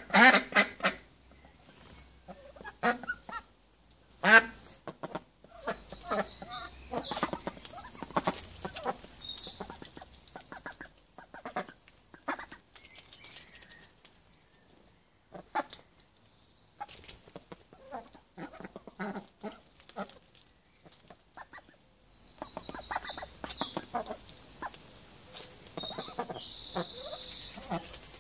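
White domestic ducks quacking in loud, short calls at intervals, with scattered clicks and rustles of beaks pecking and tearing at a hanging head of lettuce. A small bird chirps in rapid high trills twice in the background.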